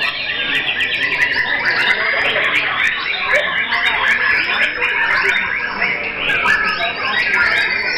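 Many caged white-rumped shamas (murai batu) singing at once: a dense, unbroken chorus of overlapping whistles and rapid trills, with many sharp ticks.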